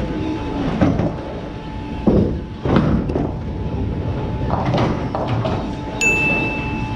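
Bowling ball rolling down a wooden lane with a low rumble, then a clatter of pins, amid the knocks and rumble of a bowling alley. Near the end a steady high beep sounds for about a second.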